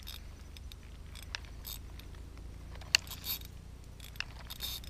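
Fishing reel on a slingshot being wound in, a steady low whir with scattered light clicks.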